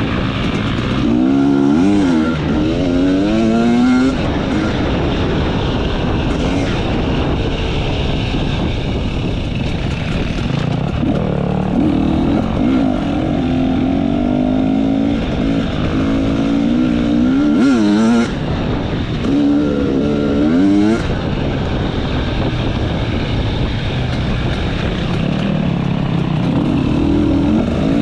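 Enduro motorcycle engine under way off-road, its pitch climbing in several rising pulls, each cut off by a sudden drop.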